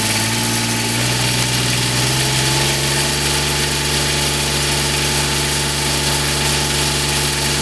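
Fire engine's engine driving its centrifugal fire pump, throttled up from the pump panel in about three steps over the first few seconds, then holding a steady higher speed as pump pressure is brought up to about 200 PSI.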